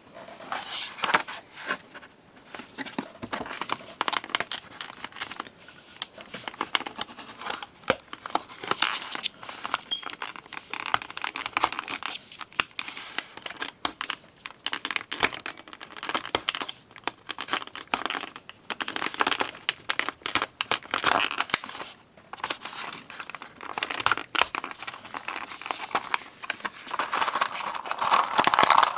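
Crinkling, crackling and tearing of a toy's plastic blister pack and card backing as it is cut open with a hobby knife and pulled apart by hand, with many sharp clicks and crackles. Near the end a foil bag crinkles loudly as it is torn open.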